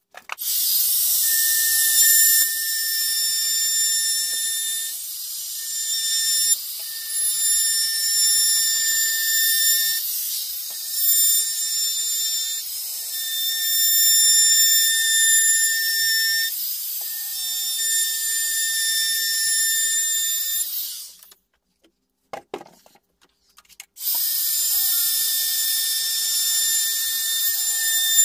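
Compact electric trim router running at high speed as it routes the edges of a wooden nightstand, a steady high-pitched whine that rises and dips a little with the cut. It stops about 21 seconds in, there is a faint knock, and it starts up again about three seconds later.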